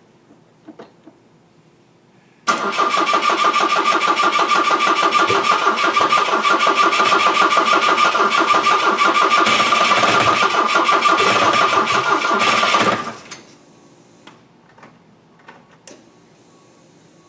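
Turbocharged four-cylinder Volvo 240 engine in a Volvo 1800 being cranked on the starter for about ten seconds on its first start attempt with a freshly wired VEMS ECU: an even, fast chugging with a steady starter whine, which begins about two and a half seconds in and cuts off suddenly.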